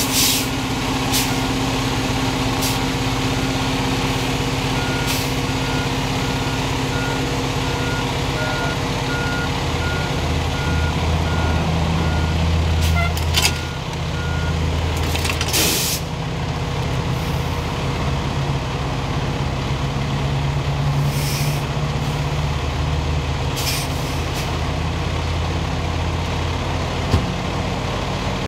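Fire engine's diesel engine idling with a deep steady hum, swelling a little in the middle. A high electronic beep repeats about twice a second for around ten seconds in the first half, and there are several short hisses of air.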